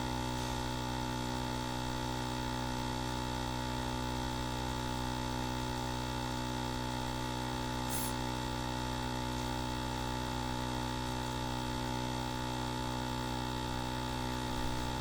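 Electric sanding machine running with a steady, even hum. A faint click comes about eight seconds in.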